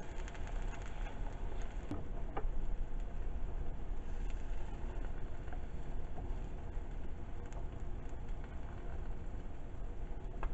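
Egg-in-a-basket (bread with an egg in its centre) sizzling steadily in butter in a nonstick frying pan, cooking on its second side after the flip. A couple of light clicks come through the sizzle.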